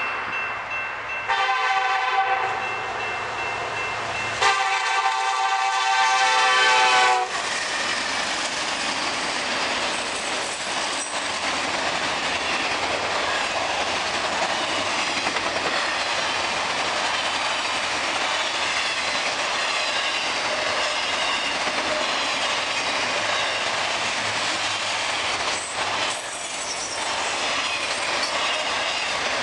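Diesel locomotive horn sounding a short blast and then a long one as the train nears the grade crossing. The locomotives and a long string of autorack cars then roll steadily past, with wheels clicking over the rail joints.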